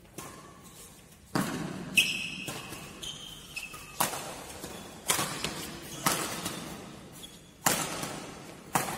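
Badminton rackets striking the shuttlecock in a doubles rally, sharp smacks roughly a second apart, about seven in all, each ringing briefly in the hall. Short high squeaks from court shoes come between some of the hits.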